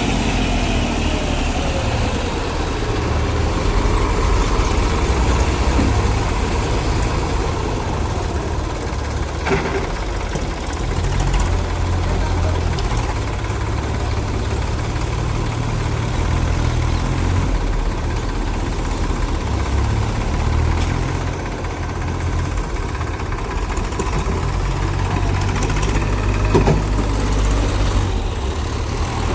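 Heavy diesel engine running, its low note rising and falling a little under varying load, with a couple of sharp knocks.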